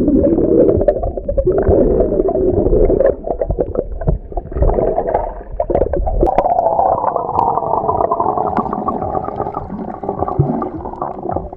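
Muffled underwater sound from a camera held under the surface of a swimming pool: a dull wash of water noise with bubbling and scattered small clicks, and nothing clear above the low, muffled range.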